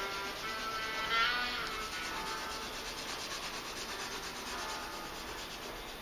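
Pencil shading on paper: continuous scratchy rubbing of graphite strokes.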